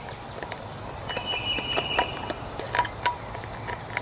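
Scattered light clicks and crinkles from handling a plastic MRE drink pouch, with a thin steady high tone lasting about a second from about a second in.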